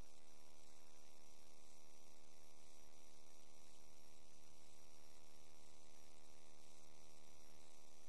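Steady electrical mains hum with a faint high whine and hiss, unchanging throughout.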